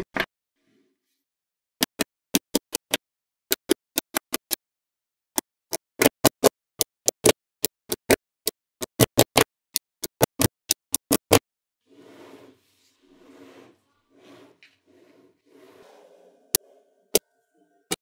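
Magnetic balls snapping together in a rapid, irregular series of sharp clicks as pieces of a ball-magnet wall are joined. This is followed by a few seconds of softer scraping as the walls are shifted, then a few more single clicks near the end.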